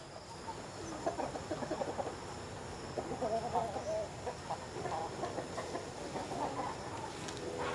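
Peruvidai game chickens clucking in many short, scattered calls.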